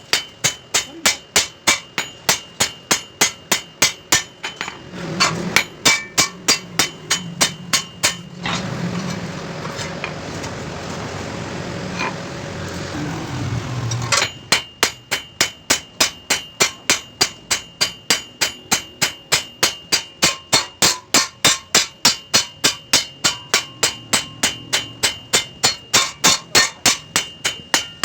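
Hammer blows on a steel chaff cutter blade against an anvil, a steady rhythm of about three strikes a second, each with a ringing metallic note, as the blade is sharpened by hammering. The blows stop for about six seconds midway, leaving a steady rushing noise, then start again.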